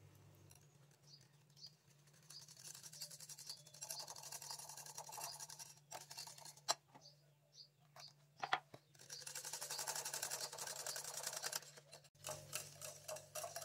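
Wire whisk beating cream and condensed milk in a glass bowl: fast, even strokes, broken partway through by a few separate clicks before the quick whisking starts again.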